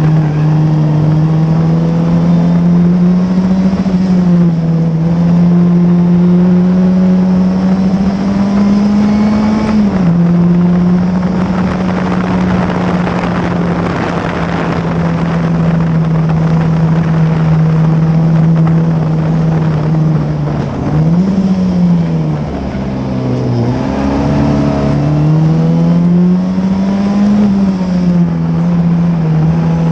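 Classic Formula Ford's 1600 cc Ford Kent four-cylinder engine at high revs, heard from the cockpit, holding a fairly steady note with a short dip about ten seconds in. A little past twenty seconds the revs drop away, then climb back up, with wind rush over the car in the middle stretch.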